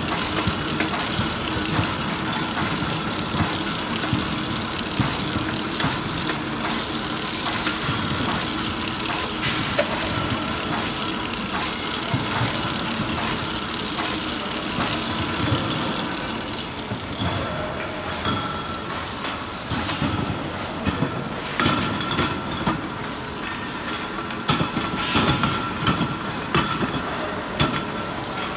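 ASL-1000 shrink sleeve labeling machine running with aerosol cans, a steady mechanical hum with a high tone and rapid clicking from the sleeve cutter and can conveyor. From about two-thirds through, louder sharp knocks come in.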